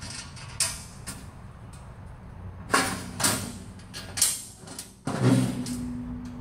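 Steel baffle-plate parts knocking and scraping against each other inside an offset smoker's steel cook chamber while they are worked into place by hand: a few separate clanks, then a drawn-out creak near the end.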